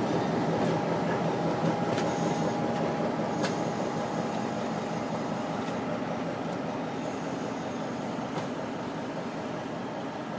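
Two diesel locomotives pulling a cut of freight cars, engines running and wheels rolling on the rails, steadily growing quieter as they move away. A faint wheel squeal dies out at the very start, and a few sharp clicks sound at intervals.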